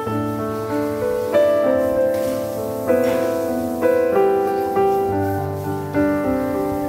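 Background piano music: a gentle melody of notes and chords that each start sharply and fade away.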